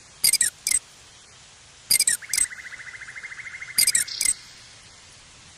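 Short, high-pitched animal chirps in quick groups of two or three, with a fast, even trill running for about a second and a half near the middle.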